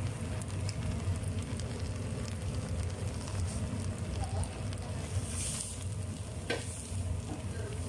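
Oil sizzling in a frying pan while a wooden spatula stirs and scoops the fried mixture, over a steady low hum. A single sharp knock late on.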